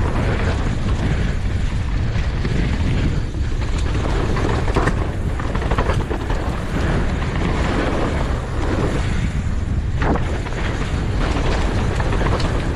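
Downhill mountain bike running fast down a dirt trail: a steady rush of wind over the microphone mixed with tyre noise and the bike's rattling, with a few sharp knocks from bumps along the way.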